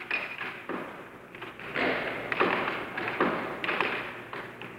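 Air hockey puck being struck by mallets and rebounding off the table's rails during a fast rally. It makes an irregular series of sharp knocks and clacks, a few each second.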